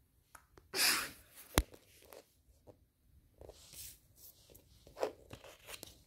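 Paper cards and packaging handled and laid out on a wooden floor: scattered rustles, a short loud rush of noise about a second in and a sharp tap just after it.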